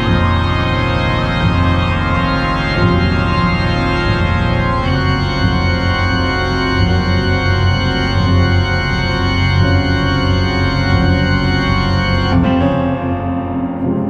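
Trailer music: sustained organ-like keyboard chords over a pulsing low drone. About twelve seconds in, the low drone and the highest notes cut out, leaving the chord ringing and slowly fading.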